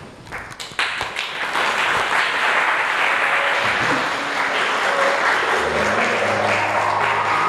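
Audience applauding, a few scattered claps building quickly into steady applause in a large hall. Music begins to play under the applause near the end.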